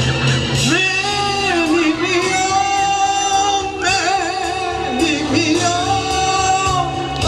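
A man singing a trot song live over a backing track, holding long notes with a wavering vibrato.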